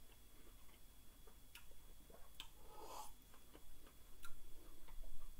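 A quiet room with a few faint, scattered clicks and a short soft rustle about three seconds in.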